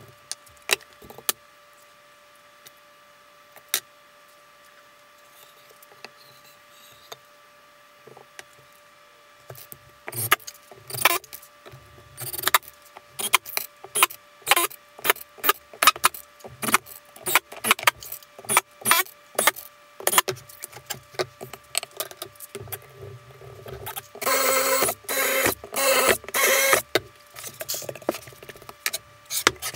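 Plywood panels knocking and clattering as they are handled and screwed together, with short bursts from a Makita cordless impact driver; near the end the driver runs in three louder bursts of about a second each as screws are driven home.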